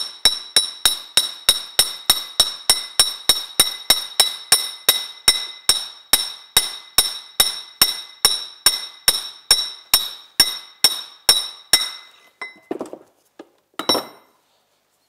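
Hammer striking a metal plate to drive a sealed bearing onto a snowmobile axle shaft held in a vise: steady blows about three a second, each with a bright metallic ring. The hammering stops about twelve seconds in, followed by a couple of softer knocks.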